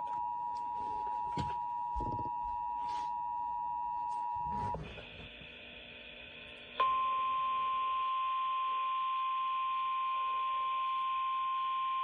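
Emergency Alert System attention signal, the steady two-tone alarm, sounding from a radio with a few faint clicks; it cuts off about five seconds in. After a short lull a single steady, slightly higher alert tone of the kind NOAA Weather Radio sends starts about seven seconds in and holds, announcing a severe thunderstorm warning.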